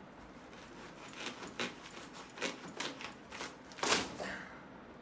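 Plastic wrapping being cut with a blade and a woven plastic sack pulled open: a run of short crinkling, crackling scrapes, the loudest about four seconds in.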